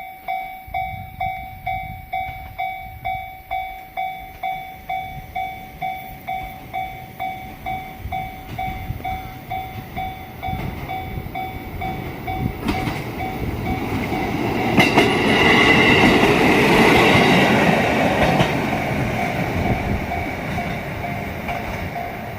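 A Japanese level-crossing warning bell dings steadily, a little under two strikes a second. From about halfway through, a JR Hokkaido KiHa 54 diesel railcar comes up and passes the crossing: its engine and wheel noise swells to loudest about three quarters of the way in, with a few sharp wheel clicks, while the bell keeps ringing underneath.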